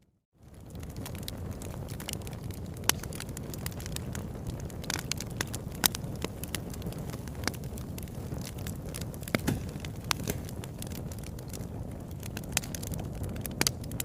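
Wood fire burning in a fireplace: a steady low rumble of flames with frequent sharp crackles and pops, some much louder than others. The sound drops out for a split second at the very start, then comes back in.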